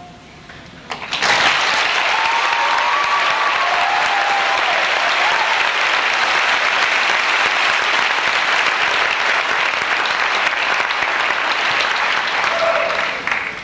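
Large crowd applauding, starting suddenly about a second in, holding steady and fading near the end.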